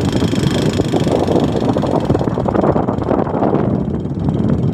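Motorcycle engine running steadily while the bike is ridden along a road.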